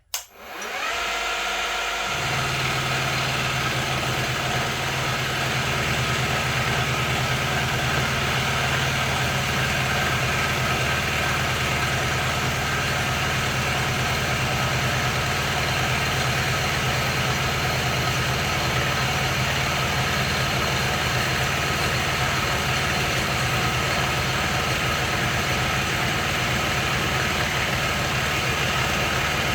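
Grizzly G0519 milling machine switched on: the spindle comes up to speed over about two seconds, then runs steadily with the cutter taking a shallow 0.2 mm facing pass.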